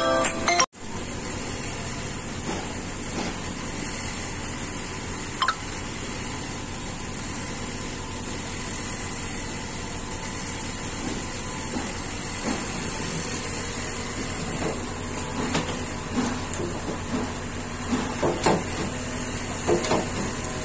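Music cuts off abruptly under a second in, giving way to the steady hiss and hum of a commercial kitchen. Short knocks and clinks of utensils against steel trays come now and then, more often in the last few seconds.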